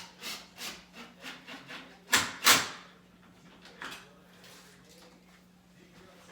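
Short rubbing, scraping strokes, about three a second, then two louder scrapes a little after two seconds in and a weaker one near four seconds.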